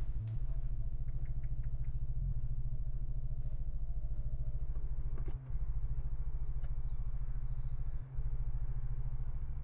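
A steady low hum, with two brief high chirps about two and three and a half seconds in.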